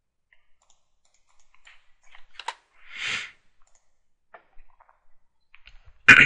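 Scattered faint computer mouse clicks as checkboxes are ticked and the Start button is pressed, with a soft breathy swell about three seconds in. A short, loud burst of noise comes just before the end.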